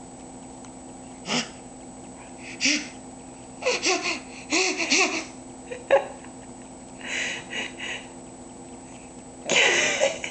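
Baby laughing in short breathy bursts, with a cluster of short bursts about four seconds in and the longest, loudest laugh near the end.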